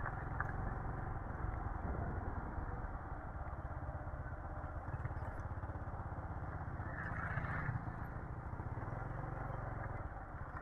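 Motorcycle engine running steadily at low speed on a rough lane, with a brief louder passage about seven seconds in as an oncoming scooter goes by.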